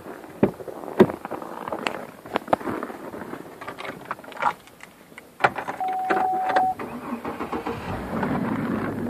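Clicks and knocks of getting into the vehicle, then a knock, a single electronic chime lasting about a second, and the 2004 Chevrolet Trailblazer's engine cranking and starting about three-quarters of the way in, settling into a steady idle.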